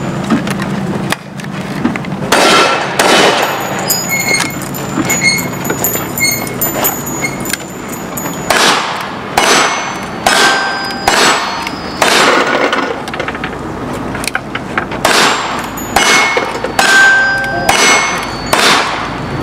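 Gunshots in a cowboy action shooting stage: two shotgun shots a few seconds in, then a fast string of revolver shots about every half-second to second, with a short pause midway as the shooter switches pistols. Steel targets ring after several hits.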